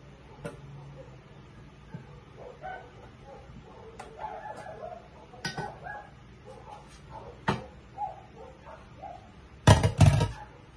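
Kitchen work at a countertop blender: scattered light knocks and clicks of a knife and ingredients being handled, with a louder burst of clatter near the end.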